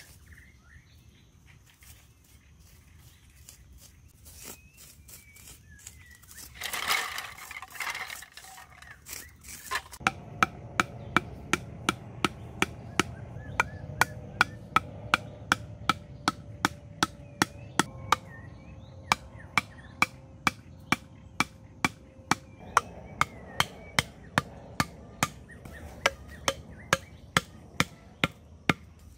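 Wooden mallet striking the tops of bamboo stakes to drive them into the dirt, sharp regular knocks about two a second starting about a third of the way in. Before that it is mostly quiet, with a short burst of noise about seven seconds in.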